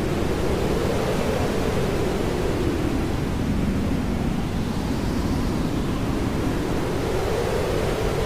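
Hair dryer blowing steadily: a continuous rushing hiss, heavy in the low end, whose tone slowly swells and eases every few seconds.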